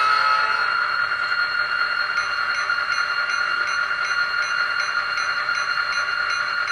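Sound of an EMD diesel engine idling, played through the small speaker of the ESU sound decoder built into an N scale SD35 model locomotive as it creeps along the track. It is a steady hum of held tones. A cluster of lower tones stops about half a second in, and a faint regular ticking, two or three a second, joins about two seconds in.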